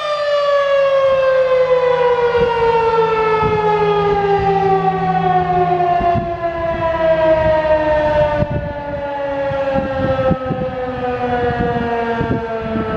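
Federal Signal 2001-SRN outdoor warning siren winding down, its rotor coasting so the loud wailing tone slides steadily lower in pitch.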